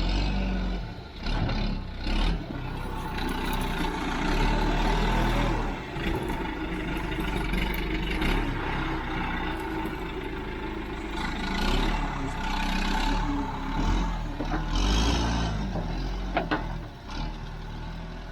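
Backhoe engine running and working, its pitch and level rising and falling as it clears brush, with a few sharp knocks.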